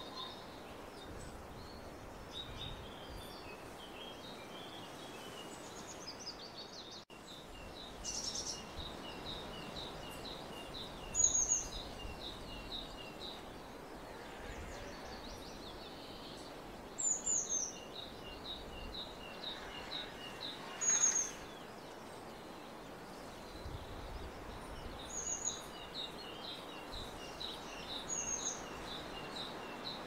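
Small songbirds singing against a steady outdoor hiss: long runs of a high note repeated about three to four times a second, broken by half a dozen short, sharper, higher chirps. The loudest chirps come about 11 and 21 seconds in. There is a brief dropout about seven seconds in.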